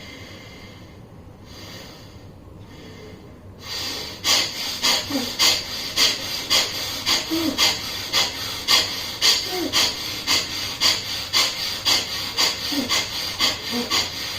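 Bhastrika pranayama (bellows breath) through one nostril, the other blocked by the thumb: a few soft breaths, then from about four seconds in, fast forceful sniffing breaths in and out through the nose, both directions audible, in an even rhythm of about two to three a second.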